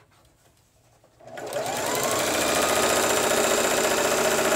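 Electric sewing machine starting about a second in, its motor whirring up in pitch to a steady fast run as it stitches a folded hem in light fabric.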